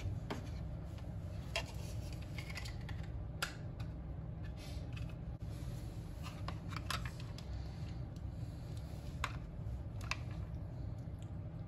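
Scattered light plastic clicks and taps as a pocket multimeter's plastic case halves and back are handled and fitted together, with a steady low hum underneath.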